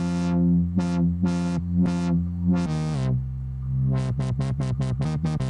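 Dubstep 'wub wub' wobble bass from FL Studio's Sytrus synthesizer: a held bass note whose filter an LFO opens and closes, at first in slow swells about twice a second, then after about four seconds in a fast wobble of about five a second.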